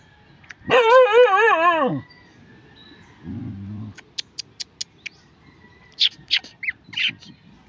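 A dog whining: one long wavering cry, about a second long, that drops in pitch as it ends.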